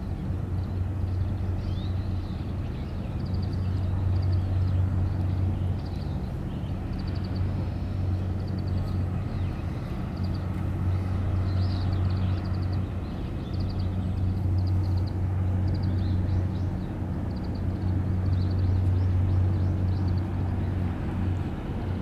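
A steady low mechanical drone, swelling louder and easing off every few seconds, with faint short high chirps scattered over it.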